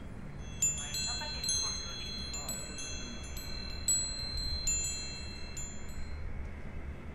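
Wind chime of small hanging bells jingling: many bright, high strikes that overlap and ring on, dying away about six seconds in.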